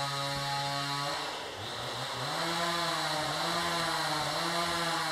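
Chainsaw engine idling steadily. About a second in, its speed sags and falters, then picks back up and wavers a little before settling back to a steady idle.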